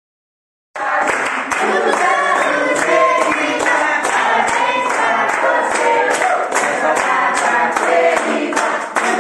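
A group of voices singing a birthday song to the beat of rhythmic hand-clapping, about two claps a second, starting suddenly a little under a second in after silence.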